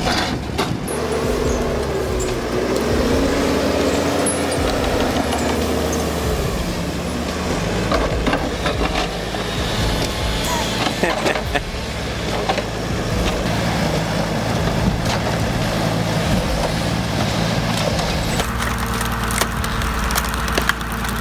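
Heavy diesel engine of a logging machine running steadily, its pitch rising and falling early on as it revs, with scattered knocks. The sound changes abruptly near the end.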